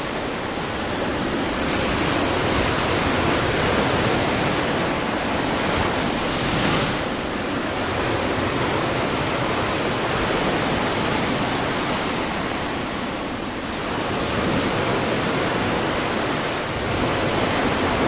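Sea surf washing through shallow water: a loud, steady rush that swells briefly about seven seconds in.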